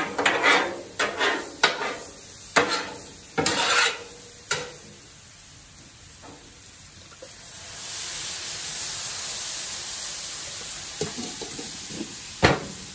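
Metal spatulas scraping and clacking on a Blackstone flat-top griddle as corn and cauliflower are stirred, over a background of frying. About eight seconds in, a steady sizzling hiss swells up. Near the end a single loud clack comes as a steel melting dome is set down over the food.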